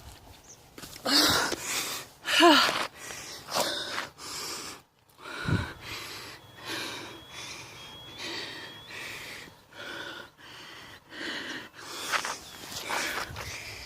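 A person breathing hard and fast after climbing stairs, with heavy in-and-out breaths about once a second and a few gasps with voice in them near the start.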